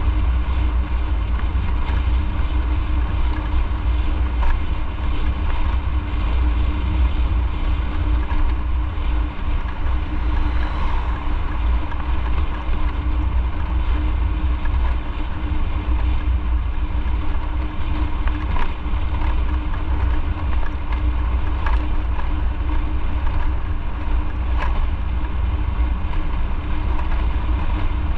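Motorcycle riding at a steady speed: the engine runs with an even hum under heavy wind rumble on the microphone.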